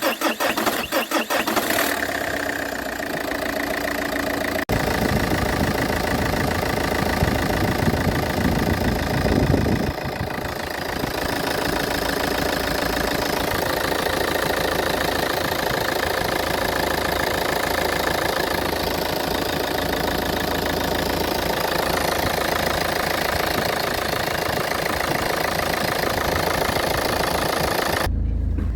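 Car engine being cranked by the starter for about two seconds, then catching and idling, loud and rough, with a heavier low rumble for several seconds after it fires. The noise goes with a fault that shakes the whole car, which the uploader says has a simple cause.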